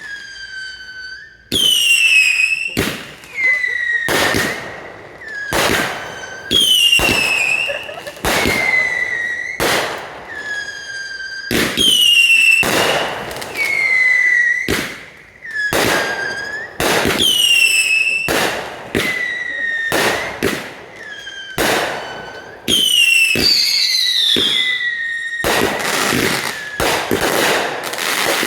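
Consumer fireworks firing in quick succession: repeated shrill whistles that fall in pitch, each paired with sharp bangs, about one every one to two seconds. Near the end the bangs come thick and fast.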